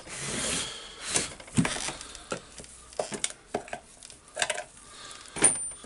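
Metal housing parts of a Hilti TE1000-AVR demolition hammer being handled and set down on a wooden workbench: scattered clicks, knocks and scrapes, with a rustle near the start and the sharpest knock near the end.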